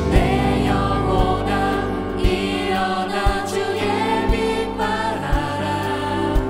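A live contemporary worship song: a group of vocalists singing together over keyboards, bass guitar and a drum kit, with the kick drum landing about once a second.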